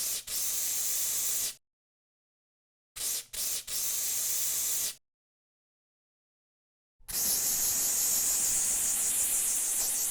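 Aerosol cockroach insecticide can with a narrow nozzle tube, spraying in bursts of bright hiss. The first burst runs about a second and a half. A second starts with a couple of quick sputters about three seconds in and lasts about two seconds. A long, steady spray begins about seven seconds in.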